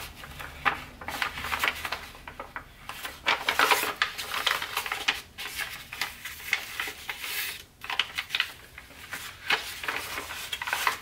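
A sheet of Tant origami paper being folded and pre-creased by hand, with crisp rustling and crackling as the paper bends and the fingers press and slide along the folds. It comes in uneven spells with a few short pauses.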